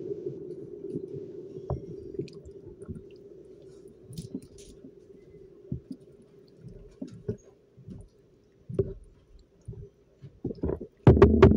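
A spoon stirring and lifting a thick, chunky mixture in a large pan, making soft wet squelches and dull knocks against the pan. A low steady hum fades away over the first few seconds. Loud music with a pulsing beat cuts in just before the end.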